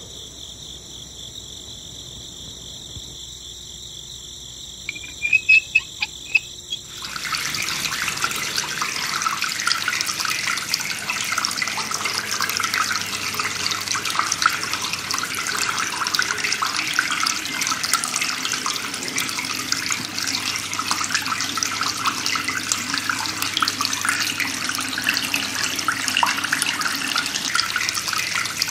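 Water streaming from a thin plastic hose and splashing into a muddy seedling plot, a steady rush that starts about seven seconds in. Just before it come a few sharp clicks over a faint steady hum.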